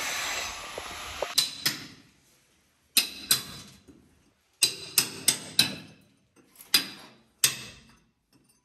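Hammer striking, about ten sharp knocks, each with a short metallic ring. They come in pairs and short runs with pauses between.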